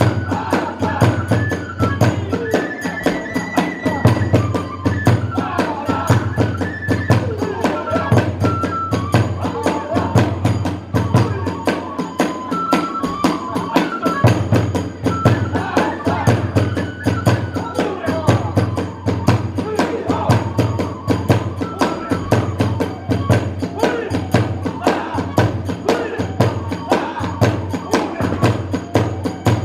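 Kagura hayashi music played live: a fast, driving beat of drum and small hand cymbals, with a flute melody over it.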